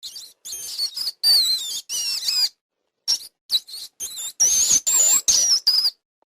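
A string of short, high-pitched animal squeaks with wavering pitch, about a dozen calls in two runs split by a brief pause near the middle.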